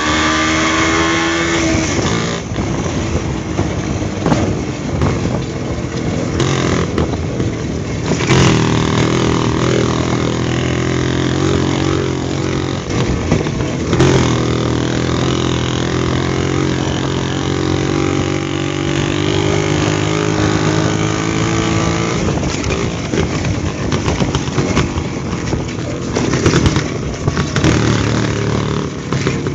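WSK motorcycle's two-stroke single-cylinder engine running as it is ridden over a rough dirt track, its pitch rising and falling with the throttle, dropping sharply about two seconds in. A few sharp knocks come through as the bike jolts.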